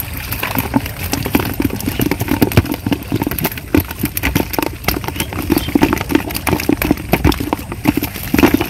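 Water splashing and sloshing in a plastic bucket as small fish are shaken out of a bamboo fish trap into it, with many quick, irregular splashes and taps.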